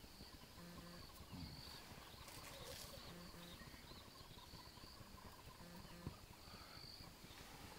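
Faint bush ambience with a few deep, short calls of distant southern ground hornbills and thin, high insect or bird chirps recurring every second or so.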